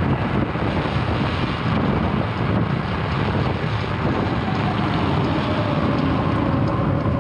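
Steady wind rush over the microphone with wet-road tyre noise from the Arcimoto FUV, an electric three-wheeler, riding on a rain-soaked road. A faint falling whine runs under the noise in the second half.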